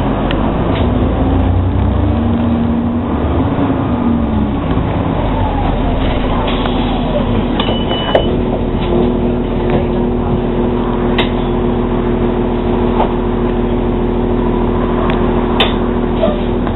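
Inside an Orion VII NG diesel-electric hybrid bus at cruising speed: steady drivetrain and road noise with the hybrid drive's whine, which bends in pitch and then holds steady from about nine seconds in. Scattered rattles and clicks from the bus body, and a brief high beep about eight seconds in.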